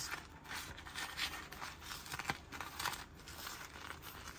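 Granulated sugar crunching and rustling as a freshly fried donut is rolled and pressed in it: irregular gritty scrapes with short ticks.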